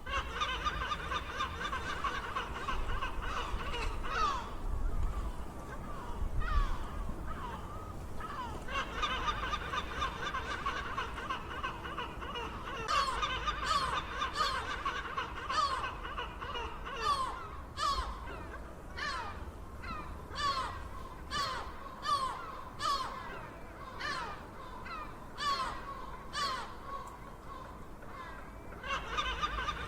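Gulls calling: harsh, laughing calls repeated in quick runs, with a stretch in the middle where single falling calls come about once a second.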